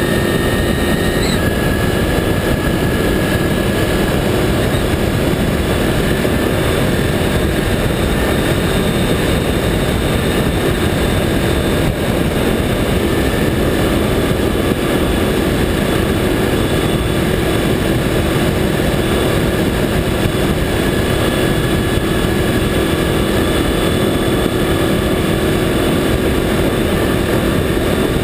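Honda VFR800 V4 engine running at a steady high-speed cruise, its note held level under heavy wind rush and tyre-on-asphalt roar picked up by a camera mounted low beside the front wheel.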